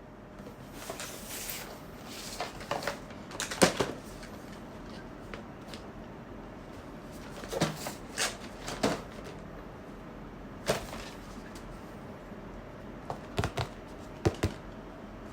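Hands handling and opening a blind box's packaging: scattered rustles, taps and sharp clicks in irregular clusters.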